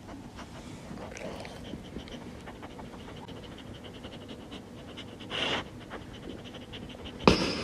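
A dog panting steadily, with a brief louder breath about five and a half seconds in and a sharp click near the end.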